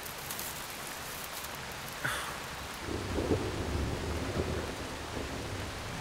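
Steady heavy rain hissing on forest foliage. About three seconds in, a low rumble joins it and runs on.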